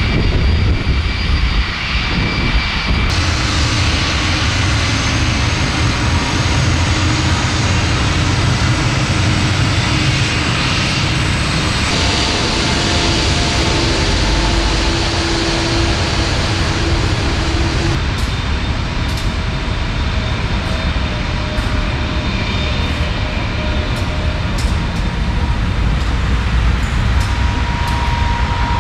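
Jet airliner engines running, a steady low rumble with a whine over it, typical of an airport apron. The sound changes abruptly three times as the recording is cut.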